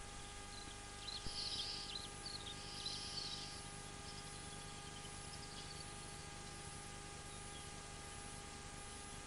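Birds chirping in short high-pitched bouts from about a second in until past three seconds, over a steady faint hiss and hum.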